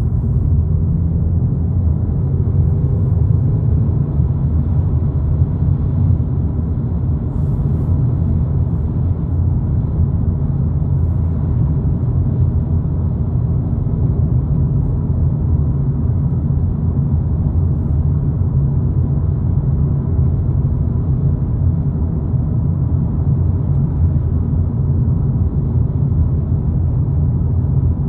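Volkswagen Polo GTI driving at a steady speed: a constant low rumble of road and engine noise with no changes.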